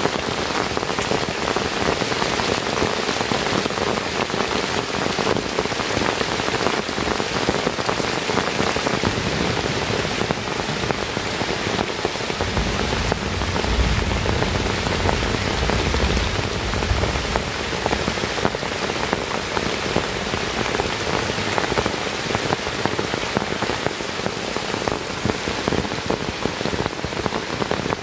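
Heavy rain falling steadily on a bamboo shelter, a dense even hiss of countless drops. A low rumble runs underneath for a few seconds around the middle.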